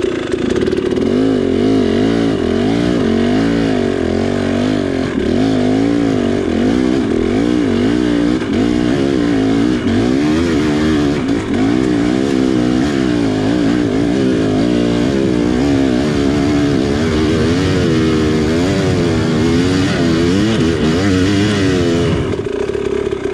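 2019 KTM 300 XC two-stroke single-cylinder dirt bike engine revving hard under load on a steep, loose hill climb, its revs rising and falling over and over as the throttle is worked and the loose ground gives way.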